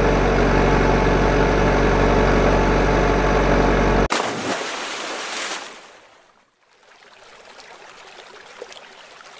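A steady truck engine sound effect, running evenly, cuts off sharply about four seconds in. A rush of splashing water follows and fades away as the toy truck goes into the pond, leaving faint water noise.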